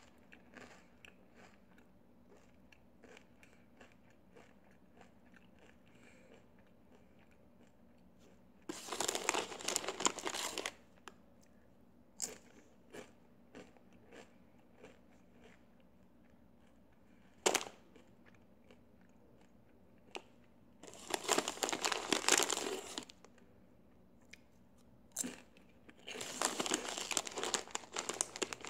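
Doritos tortilla chips being bitten and chewed, with soft crunching, a couple of sharp single crunches, and three louder bursts of crinkling about two seconds long, about nine seconds in, about twenty-one seconds in, and near the end: the chip bag being rummaged.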